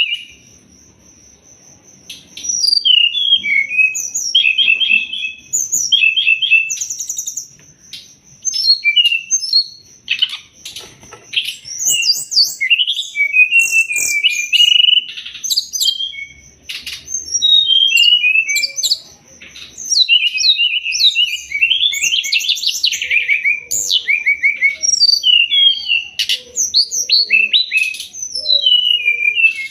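Brown-chested jungle flycatcher (SRDC) song: a rapid, varied run of high chirps, trills and short whistled phrases, starting about two seconds in and going on with only brief gaps. A thin steady high tone runs under the song.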